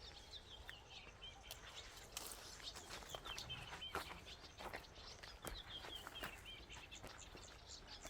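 Small birds chirping faintly and repeatedly, with scattered short clicks or taps.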